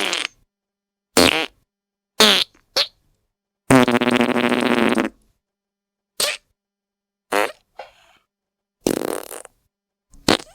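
A run of about nine separate fart sound effects with dead silence between them. Most are short; one, about four seconds in, is a longer, steady-pitched one lasting about a second and a half.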